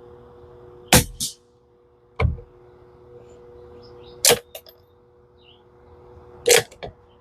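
Three suppressed .22 LR rifle shots from a Tikka T1x bolt-action: about a second in, at about four seconds, and near the end, each followed by a short softer knock. A duller thud falls about two seconds in. Birds chirp faintly over a steady low hum.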